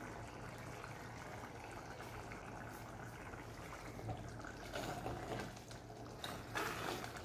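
Thick vada curry bubbling faintly in an open clay pot. From about four seconds in, a metal ladle stirs through it with soft, irregular stirring noises.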